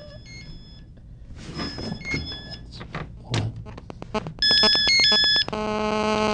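An electronic phone ringtone: a short pattern of high beeping tones plays three times, getting louder each time, then gives way to a steady buzzing tone near the end.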